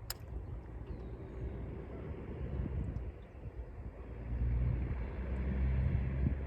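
Low, steady motor drone that grows louder about four seconds in, with a single sharp click at the very start.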